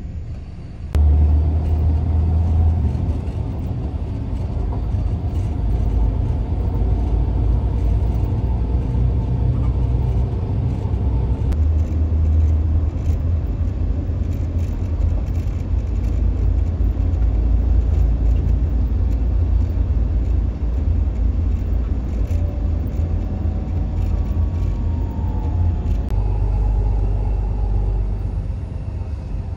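Steady low road and engine rumble heard from inside a moving vehicle, jumping up in level about a second in.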